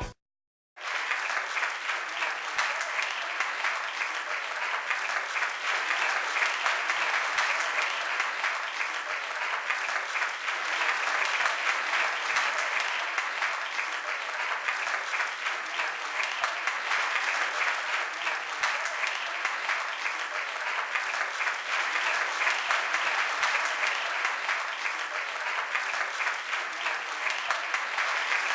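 A crowd of people applauding, many hands clapping in a dense, steady patter that starts just under a second in and holds at an even level.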